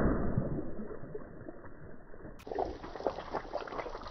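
Water and Orbeez gel beads gushing and splashing onto asphalt from a giant water balloon just burst under a car tyre, fading over the first two seconds. About two and a half seconds in, a run of small crackles and squishes as the tyre presses on the scattered wet gel beads.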